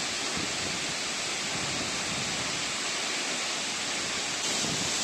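Steady rush of a waterfall running high after rain, becoming slightly louder near the end.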